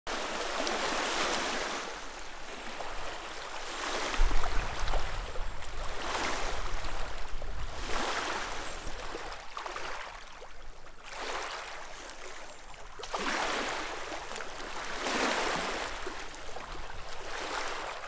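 Small waves lapping on a stony loch shore, each wash swelling and fading about every two seconds. A brief low rumble comes in about four seconds in.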